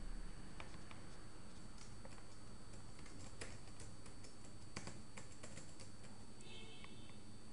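Typing on a computer keyboard: a few scattered key clicks, then a quick run of keystrokes in the middle.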